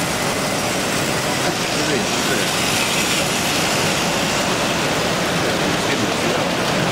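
Steady din of a crowded exhibition hall, many people talking at once, blurring into a continuous murmur.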